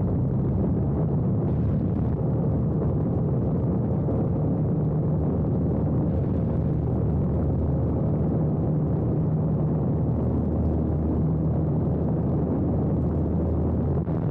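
Yellow biplane's piston engine and propeller running steadily at low power while the aircraft taxis on the ground, a constant low drone with no change in pitch.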